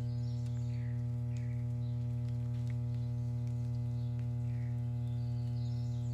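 A steady low hum with a ladder of even overtones, unchanging throughout, with scattered short bird calls chirping faintly above it.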